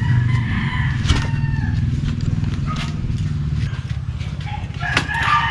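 A rooster crowing, about a second in and again near the end, over a steady low rumble.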